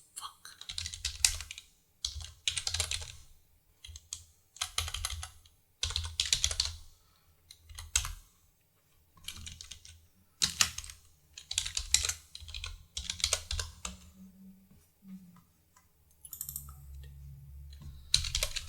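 Typing on a computer keyboard in short bursts of rapid key clicks with brief pauses between.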